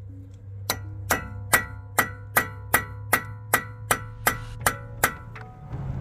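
Hammer striking a punch against the Toyota Vellfire's front hub nut, about a dozen ringing metal-on-metal blows at a steady pace. This frees the staked, indented lock collar of the nut from the axle groove so the nut can be undone.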